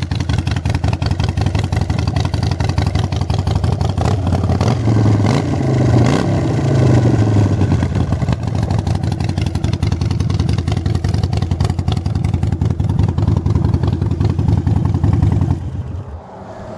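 Harley-Davidson Iron Sportster's air-cooled V-twin, bored out to 1200 with a Screaming Eagle kit, idling through a Vance & Hines exhaust, with a brief throttle blip about five seconds in that rises and falls back to idle. The sound drops away sharply near the end.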